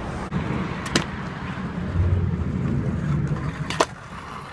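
Stunt scooter wheels rolling over rough tarmac, a steady low rumble, with two sharp clacks from the scooter, about a second in and near the end.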